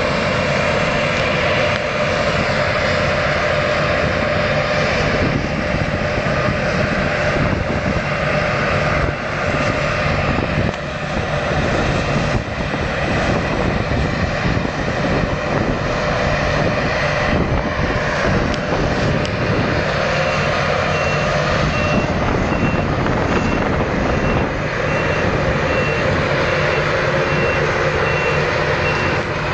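Claas Lexion 580 combine harvester running steadily under load while harvesting wheat. About two-thirds of the way through, a reversing alarm starts a regular string of high beeps.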